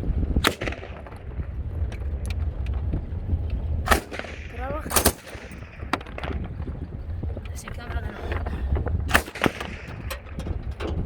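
Gunshots: loud single shots at uneven intervals, a pair close together late on, with fainter shots between, over a steady low rumble.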